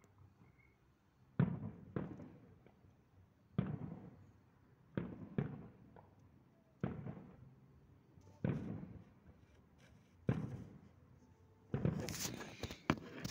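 Distant aerial firework shells bursting: about eight booms one to two seconds apart, each trailing off in a rolling echo. Near the end a louder, denser rush of noise takes over.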